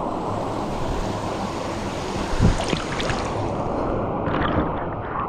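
Pool water sloshing and lapping against a waterproof camera at the surface, heard as a muffled rush, with a dull knock about halfway through and a few small splashes near the end.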